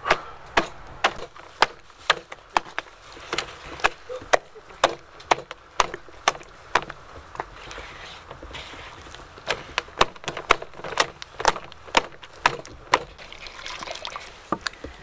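Hands slapping and pressing thick flour dough against an aluminium basin, sharp slaps about twice a second. Near the end, grape must trickles and pours into the basin.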